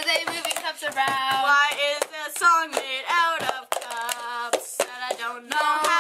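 Cup-game rhythm: hands clapping and white foam cups tapped, flipped and slapped down on a wooden table in a quick repeating pattern, with girls' voices singing the tune along with it.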